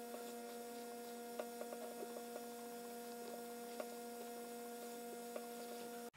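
A steady hum of a few fixed tones, with scattered light clicks of a fork and spatula against a nonstick pan as cake batter is folded; two clicks, about a second and a half and nearly four seconds in, stand out.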